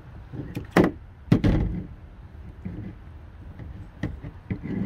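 Several sharp knocks of hard objects. The two loudest come about a second in, half a second apart, and smaller ones follow near the end.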